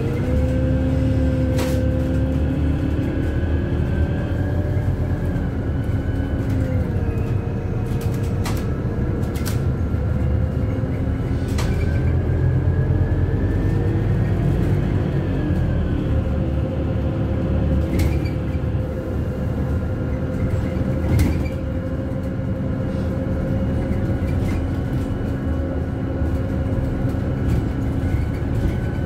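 Interior of a Scania CityWide LF CNG city bus on the move: a steady rumble from the gas engine and road, with a whine that rises and falls slowly. Sharp clicks and rattles come from inside the cabin now and then, the loudest a knock about 21 seconds in.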